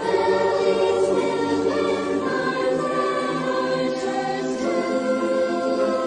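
Choral music: a choir singing long held chords.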